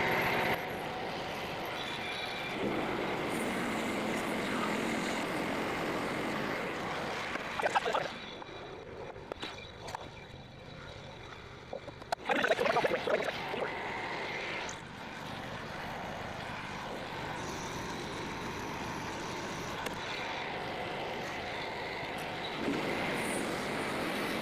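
Small engine of a portable bandsaw sawmill running while the blade rips a log. It goes quieter about eight seconds in, with two short loud bursts, then settles back to a steady run from about fifteen seconds.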